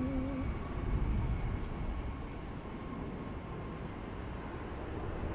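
Steady rumble of jet airliner engines on the airfield, with a faint steady high whine over it and a slight swell about a second in.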